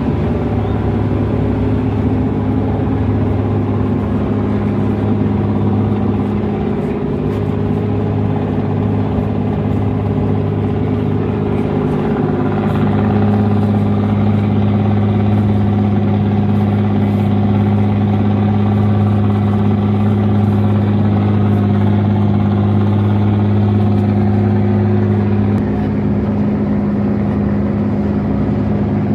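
Cargo ship's diesel engine running steadily underway with a deep, even hum. It grows a little louder about halfway through and eases back near the end.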